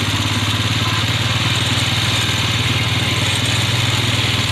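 Small engine running steadily at an even speed, with a constant pulsing hum.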